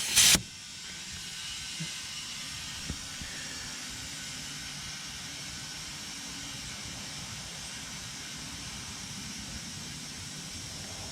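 Compressed air hissing steadily into a utility vehicle's tire through an air chuck on the valve stem, after a short loud burst as the chuck goes on. The tire is topped up this way every so often because it keeps going flat.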